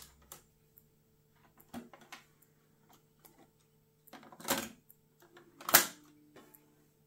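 Hitachi D-E95 cassette deck being loaded by hand. A few light clicks come from its buttons and cassette door, then a plastic clatter about four seconds in as a cassette goes into the holder. A sharp click near the end as the door is pushed shut is the loudest sound.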